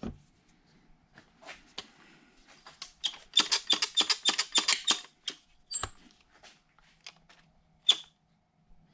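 Bench handling of the plastic gauge pod: scattered clicks and scrapes, with a quick run of scratchy rubbing strokes, about five a second, from about three to five seconds in, and two sharp clicks near six and eight seconds.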